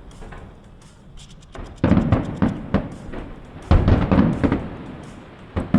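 Aerial fireworks bursting: a quick run of crackles, then two loud booms about two seconds apart, each dying away, and another sharp bang near the end.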